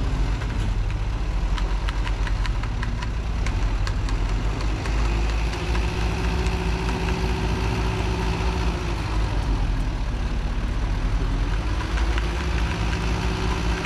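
Diesel truck engine running steadily, revving up and holding higher about a third of the way through, dropping back, then rising again near the end, as a winch cable pulls on a stuck truck. Light clicking over the first few seconds.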